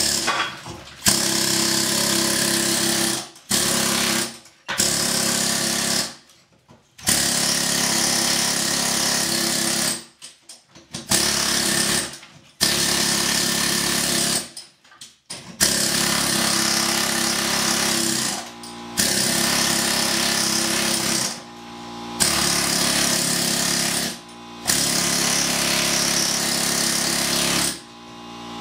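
Harbor Freight medium-barrel pneumatic air hammer with an angled scaling chisel, hammering rapidly as it chips plaster off a concrete-block wall. It runs in about ten bursts of one to three seconds, each with a short pause between.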